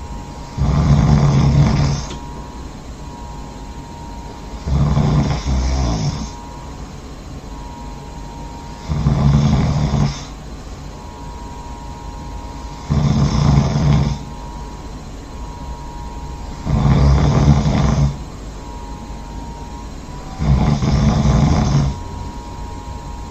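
A person snoring loudly in sleep: six snores, each about a second and a half long, coming regularly about every four seconds.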